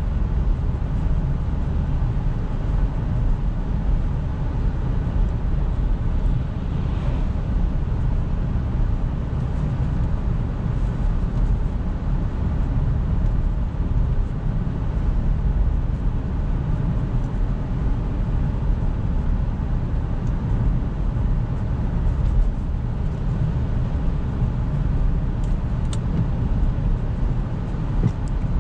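Steady running noise of a 2009 Jaguar XF's 2.7 twin-turbo diesel V6 on the move, heard from inside the cabin: a low engine hum mixed with tyre and road rumble.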